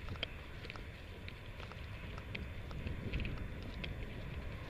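Footsteps crunching through dry undergrowth, with irregular crackling ticks, over a steady rumble of wind on the microphone.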